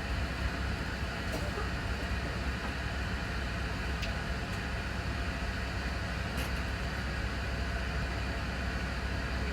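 Steady low rumble and running noise heard inside a moving HST passenger coach, with a few faint clicks.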